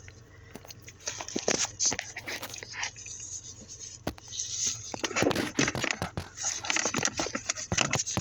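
Close handling noise of rustling and irregular clicks and knocks, denser in the second half, from hands and clothing working around the brake pedal under a car's dashboard.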